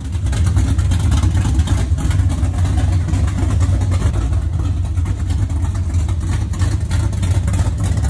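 1958 Chevrolet Nomad's V8 engine idling, a loud, steady low rumble.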